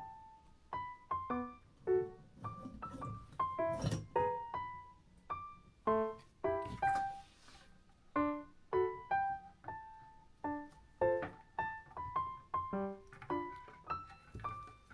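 Background music: a gentle piano melody of single notes, each ringing and dying away.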